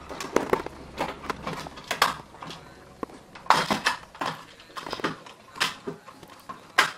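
Irregular plastic clicks, creaks and knocks from an Amewi Apace Gallop's RC transmitter housing being handled and pried apart with a screwdriver. A few louder knocks come a few seconds in and again near the end.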